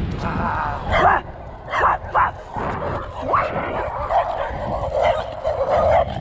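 A dog barking repeatedly while running alongside and chasing a bicycle, with sharp barks from about a second in and more frequent barking and yapping toward the end. Wind rumbles on the microphone of the moving bike.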